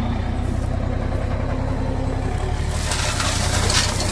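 Mitsubishi Fuso truck's diesel engine running steadily under load as the loaded tipper pulls through mud. About three seconds in, a hissing noise rises over the engine.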